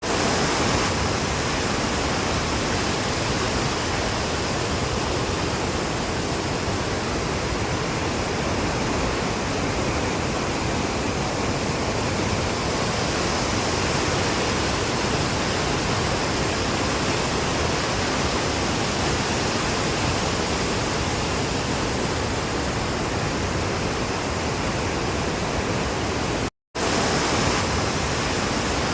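Jonha Falls waterfall in monsoon flow: water pouring and crashing steadily, a dense even rush with no let-up, broken by a brief cut-out near the end.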